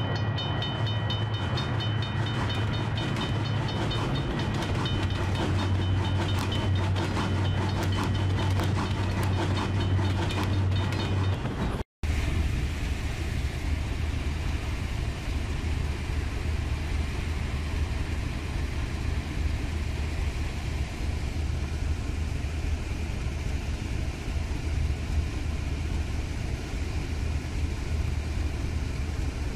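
Repeated metallic ringing over a steady low hum for about twelve seconds, cut off abruptly. Then the steady rumble of a GE U40 diesel locomotive and its train running past.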